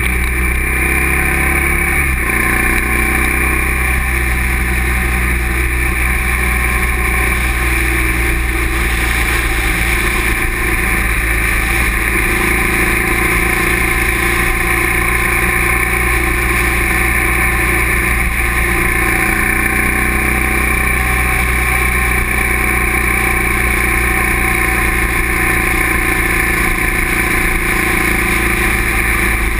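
Motorcycle engine running steadily at cruising speed on the open road, with wind rushing past the camera.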